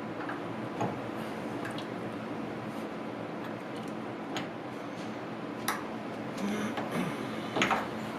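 Scattered light clicks and knocks of hand work on parts, a few seconds apart over a steady hiss, the loudest near the end.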